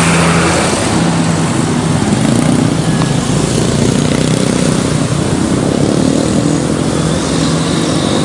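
Motor vehicle engine running steadily under heavy road noise, with no horn melody.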